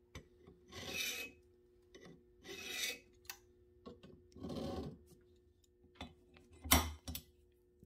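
Scribing on mild steel plate coated with layout fluid: a hard metal point scratching lines into the plate in several short strokes, each under a second. The loudest, sharpest scrapes come near the end.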